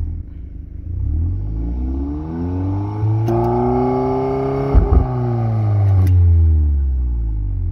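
VW Golf 8 R's turbocharged four-cylinder with an Akrapovic exhaust, revved up from idle and held at a steady high speed for about three seconds, then let back down, with a few sharp cracks while the revs are held. This is a stationary exhaust noise test in comfort mode, the quietest setting, and it reads about 89 to 90 dB at 50 cm against the 84 dB registered for the car.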